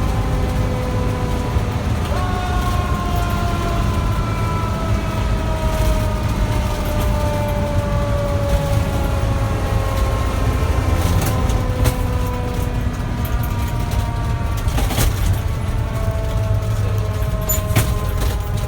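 Fire truck's Federal Q mechanical siren coasting down, its pitch falling slowly. It is given a short push back up about two seconds in and again near the end. Under it runs the steady rumble of the truck's engine, and a few sharp knocks come in the last seconds.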